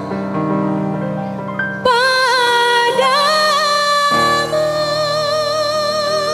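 Music: a slow melody of long held notes with a steady vibrato over sustained keyboard chords, the instrumental intro of an orkes melayu (dangdut) song.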